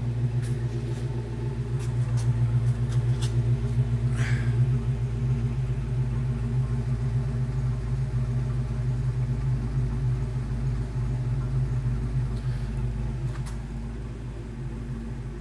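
1987 Ford Mustang GT's 5.0-litre V8 idling, heard at the tailpipes as a steady low exhaust note. It grows louder a couple of seconds in and eases off toward the end. The owner finds the exhaust flow weak and thinks there might be a small exhaust leak up front.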